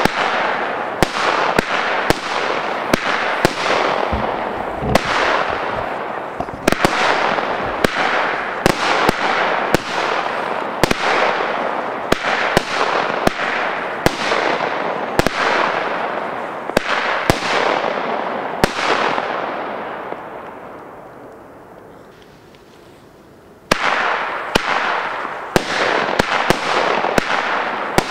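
Weco 'Fata Morgana' consumer firework cake firing a steady series of shots, about one to two a second, each followed by a fading hiss. The firing dies away for a few seconds about two-thirds of the way through, then resumes suddenly with more shots.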